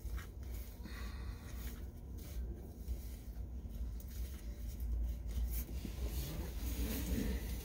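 Rustling and scraping of straps and netting as a car-seat net pocket organizer is fitted around a front seat and its headrest, over a low steady rumble.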